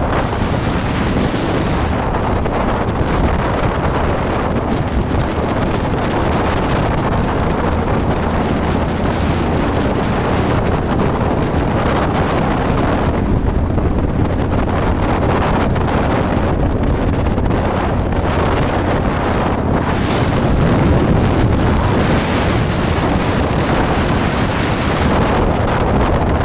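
Wind rushing over the microphone from a moving vehicle, over a steady low road and engine rumble.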